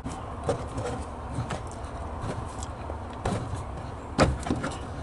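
Scattered light clicks and knocks of hand tools and metal parts being handled on the car, with a louder knock a little after four seconds in.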